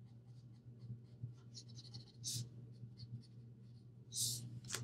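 Alcohol marker tip rubbing over coloring-book paper in short strokes, faint and scratchy, with a couple of louder swishes.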